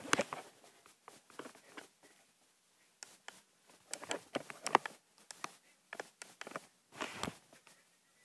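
Handling noise from a handheld recording device held close to the face: irregular soft clicks and rustles in small clusters, with a longer rustle about seven seconds in.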